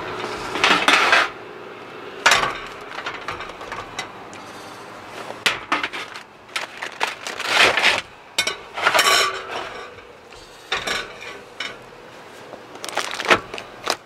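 A wire cooking rack and a metal baking sheet clinking and clattering, with aluminium foil crinkling, in irregular bursts as the foil-wrapped ribs are handled.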